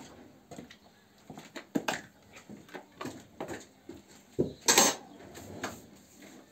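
Irregular knocks, clinks and scrapes at a concrete feed trough as a dairy cow eats the feed put out for her, with a louder clattering scrape about four and a half seconds in.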